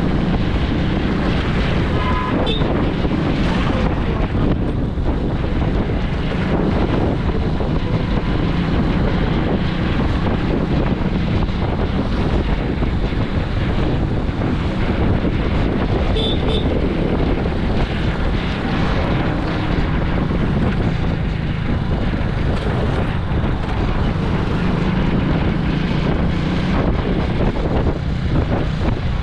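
Steady wind buffeting the microphone over the low drone of a vehicle's engine and tyres while riding along a road.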